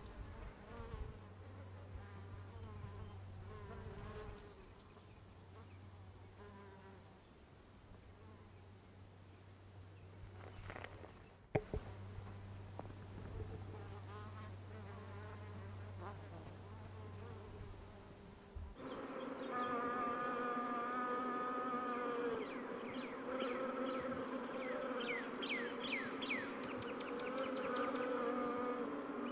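Honeybees buzzing as they forage among shrub blossoms, with a sharp tap about a third of the way in. About two-thirds through, the hum of many bees becomes louder and fuller.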